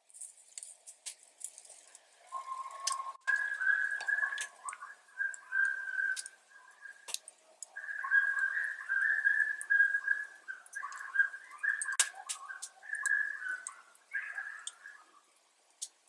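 An unidentified animal crying in a long series of high, whining yelps that break off and start again, like a small dog in distress. Scattered sharp clicks are heard among the cries.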